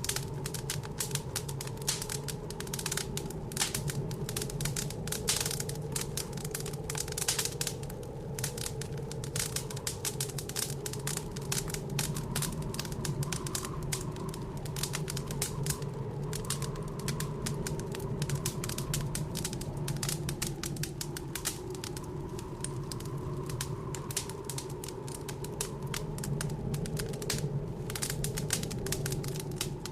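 Wood fire crackling and popping in a fireplace, with dense, irregular snaps throughout. Beneath it runs a steady, slightly wavering low drone, the blizzard wind outside.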